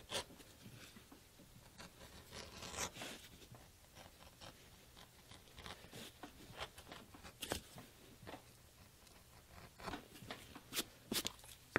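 C.S. Osborne No. 133 Western edger shaving the outer edge of a leather knife sheath: a series of short, faint, irregular scraping strokes as thin strips of leather peel away.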